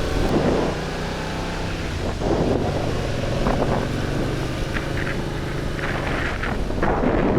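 Motorcycle engine running at a steady pace while riding, with wind buffeting the microphone in several gusts.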